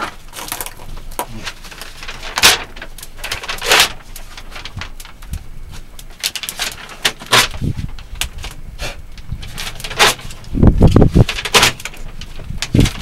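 Newspaper being torn and crumpled and tossed onto a small burning fire of paper and dry grass: irregular rustles, rips and crackles. A heavy low buffeting comes in near the end.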